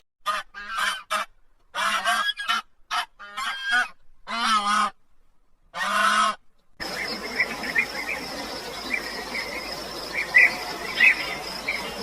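A series of short, pitched honking animal calls, about a dozen in six seconds. After a pause comes a steady hiss with a high steady whine and scattered faint chirps.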